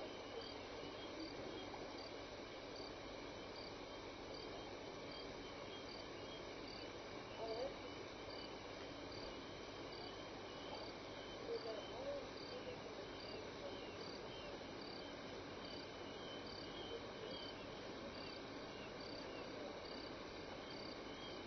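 Crickets and other insects chirping at night. A high chirp repeats evenly just over once a second over a continuous trilling chorus. Two faint, short lower calls from another animal come about a third of the way in and just past halfway.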